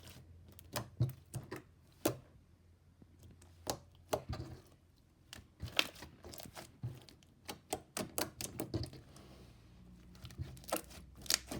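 Slime being squished and stretched by hand, making irregular sticky clicks and pops.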